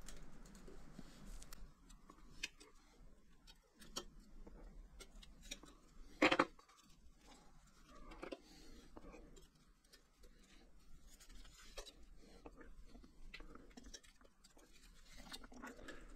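Sparse small metallic clicks and taps as a bottom bracket cup is worked out of a steel bicycle frame and its loose ball bearings come free, with one louder knock about six seconds in.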